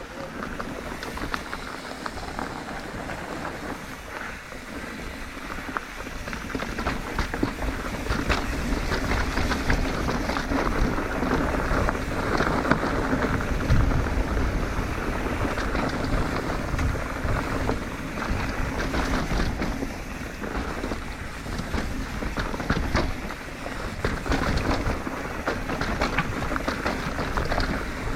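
Yeti SB150 full-suspension mountain bike riding a loose dirt trail: tyres running over dirt with many small knocks and rattles over bumps, and wind buffeting the microphone. It grows louder from about eight seconds in.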